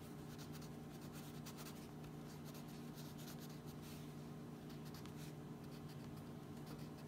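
Crayon scribbling on a colouring-book page: quick, repeated scratchy strokes of wax on paper, faint throughout.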